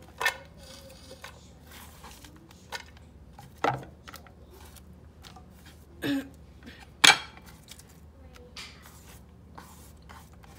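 Sliced onions scooped by hand off a wooden cutting board and dropped into a dry frying pan, with a few scattered knocks and taps, the loudest about seven seconds in.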